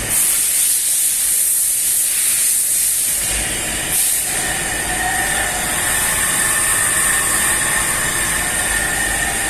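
Machine-tool motor running under a variable-frequency drive, with a steady high hiss over a low hum. About four seconds in the hiss swells again and a steady whine sets in.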